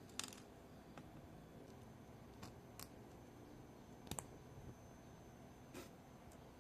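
A handful of faint, irregular clicks and taps of small hard plastic pieces being handled, such as 3D-printed keycaps; the sharpest is right at the start and there is a quick double click about four seconds in.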